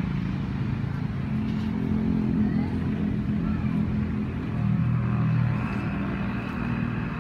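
A low, steady engine drone whose pitch drifts slightly.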